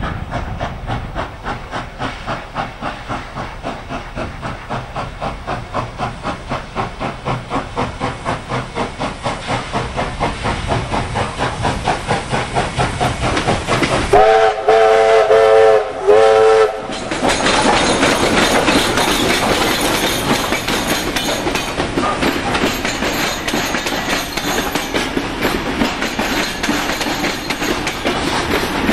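NSW 36 class steam locomotive 3642 working a train, its exhaust chuffing in steady beats about three a second. About fourteen seconds in its steam whistle sounds in a few short blasts, then the locomotive runs close by with hissing steam and wheel noise, louder than before the whistle.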